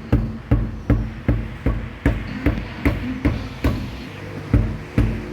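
Blows struck on a Ford Fusion's tyre: a dull thump about every 0.4 s, with a short pause near four seconds in. This is a knock test for a loose brake caliper, done on the side not suspected of the noise.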